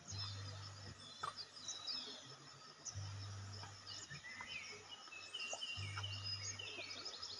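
Birds chirping in the surrounding trees: many short, high calls and quick falling chirps, overlapping. Beneath them a low hum starts and stops in stretches of a second or two.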